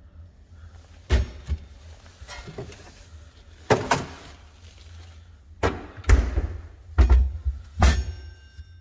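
Frozen-solid bottle of tomato sauce being knocked hard against a surface, about six irregular knocks and thumps, the heaviest in the second half.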